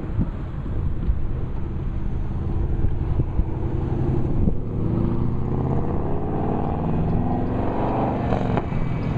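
Double-stack freight train rolling past with a steady low rumble and occasional knocks. About halfway in, a rising whine climbs for a few seconds and cuts off near the end.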